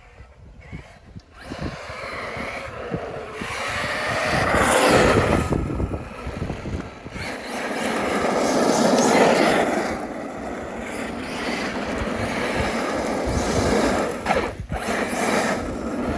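Arrma Kraton 8S electric RC truck driving on pavement. Its motor and tyres make a rushing sound that swells and fades several times as it speeds up and passes, with wind buffeting the microphone.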